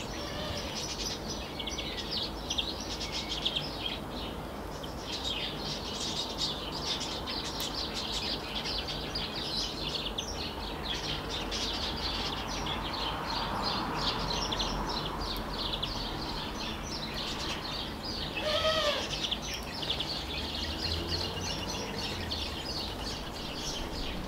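Small songbirds chirping and twittering in a dense, continuous chorus of short high calls, with one lower call falling in pitch about 19 seconds in. A faint steady low rumble runs underneath.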